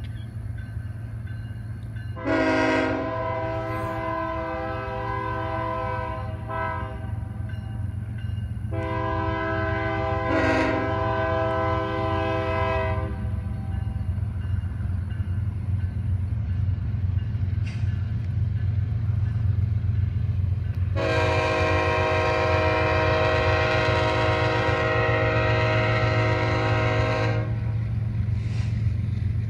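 BNSF diesel freight locomotive's multi-chime air horn sounding three long blasts, the last the longest. A steady low rumble of the train rolling by runs under the horn.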